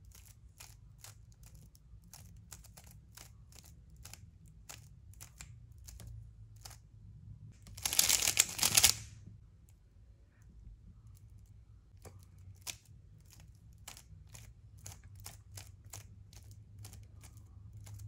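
Stickerless 3x3 speedcube being turned by hand, its layers clicking as each move snaps into place, about three to four clicks a second. About eight seconds in comes a louder rasping burst of about a second, then the turn-by-turn clicking resumes.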